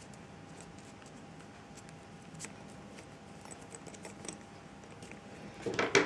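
Faint rustling and small clicks of paracord being pulled tight into a knot by hand, over a faint steady hum. A louder, brief rustle comes near the end.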